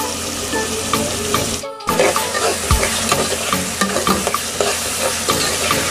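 Chopped onions and green chillies sizzling as they fry in oil in a metal pot, with a spatula stirring and scraping against the pot in many short clicks and taps. The sizzle cuts out for a moment a little under two seconds in.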